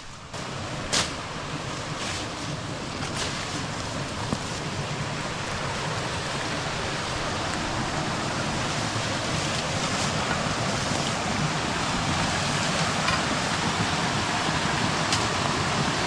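Rushing water of a small forest stream cascading over rocks, a steady hiss that grows gradually louder, with a few sharp snaps of footsteps through undergrowth in the first few seconds.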